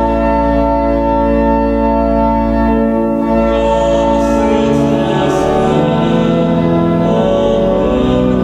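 Church organ playing a hymn tune in held chords that change step by step.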